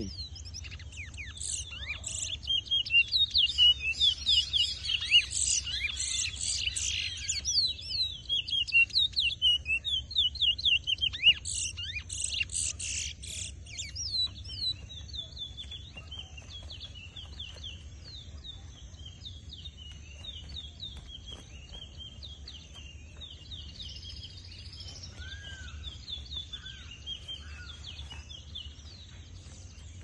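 Towa towa (chestnut-bellied seed finch) singing rapid runs of quick high sweeping notes. The song is loud and dense through the first half, then gives way to fainter, scattered chirps.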